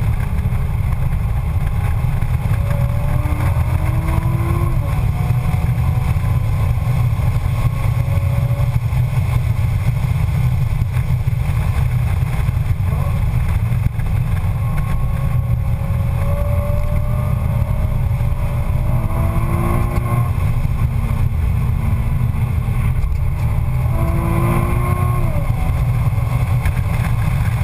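Nissan 350Z's 3.5-litre V6 heard from inside the cabin at track speed over a heavy low road and wind rumble, its pitch climbing several times under acceleration and dropping back as gears change.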